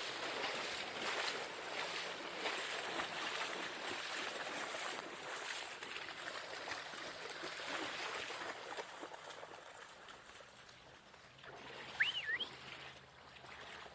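Floodwater splashing and sloshing as dogs and people wade and swim through it, busy at first and thinning out after about nine seconds. About twelve seconds in comes a brief high squeal that rises and falls in pitch, the loudest moment.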